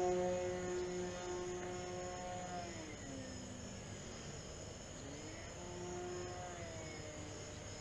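Distant E-flite Night VisionAire RC plane's electric motor and propeller running in flight as a steady pitched drone. The pitch drops about a third of the way in, climbs again a little after halfway, and eases down near the end.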